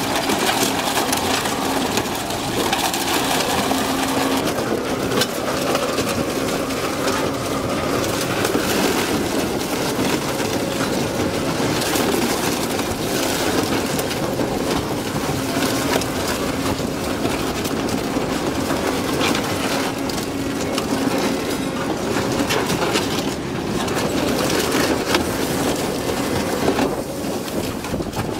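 Twin-shaft shredder crushing and tearing up a small van's body: continuous crunching and grinding of metal with many small cracks and snaps, over a steady hum from the machine.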